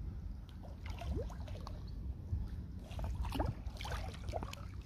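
Shallow pond water sloshing and trickling, with scattered small splashes and clicks, as someone wades and works through the water and mud searching for crab burrows.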